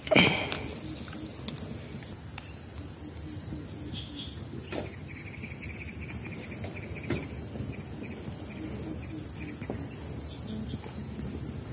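A steady, high-pitched insect chorus, with a short knock just as it begins and a few faint clicks later.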